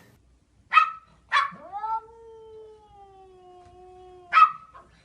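A pet's long drawn-out howl, held for about three seconds with its pitch sliding slightly down. Two short sharp calls come before it and another ends it.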